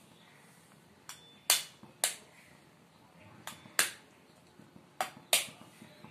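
An egg tapped lightly against the rim of a metal pan to crack its shell: about seven sharp clicks, several coming in quick pairs.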